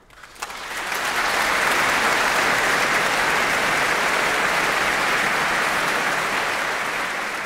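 Audience applauding: a few first claps, building within about a second into full, steady clapping that starts to taper near the end.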